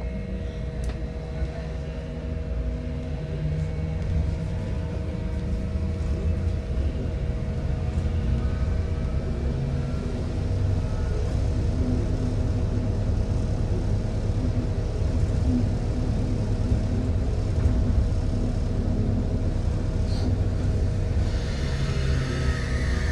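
Bogdan T70117 trolleybus under way, heard from inside the passenger cabin: a low rumble of the body and tyres with two steady electrical hums on top. It grows louder over the first several seconds, and a hiss swells near the end.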